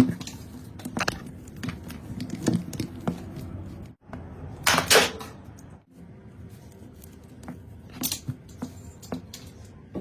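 Clicks, knocks and light clatter of tools and parts being handled on a work surface, with one louder scraping rasp about five seconds in.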